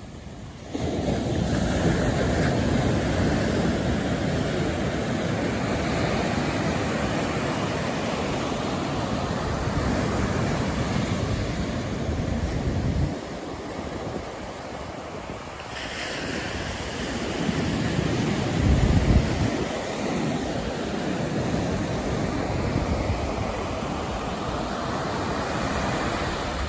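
Ocean surf breaking and washing up a sandy shore, with wind buffeting the microphone as a low rumble. The sound cuts abruptly a few times, and there is a strong low surge about two-thirds of the way through.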